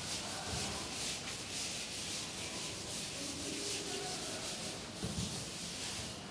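Blackboard duster wiping chalk off a chalkboard: a steady rubbing hiss made of quick, repeated back-and-forth strokes.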